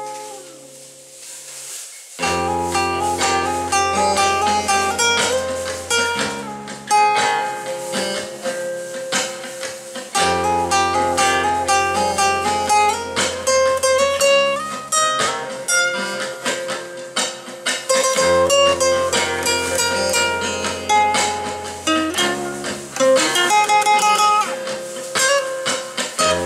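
Music: a plucked guitar playing quick melodic notes over long held bass notes. It starts quietly and comes in fuller about two seconds in.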